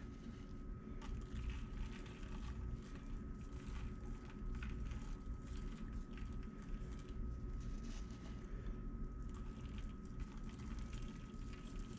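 Faint scattered ticks of coarse sea salt grains being sprinkled by hand onto loofah slices in a soap mold, over a steady low hum with a thin high tone.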